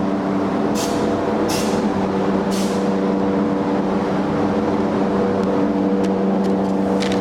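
Steady machine hum with several short bursts of hissing air, about three in the first three seconds and another near the end.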